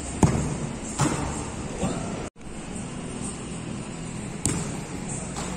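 A football struck hard in a free kick, a sharp thud about a quarter second in, followed by lighter thuds about a second in, just before two seconds and again about four and a half seconds in, over a steady background hum. The sound cuts out for a moment just after two seconds.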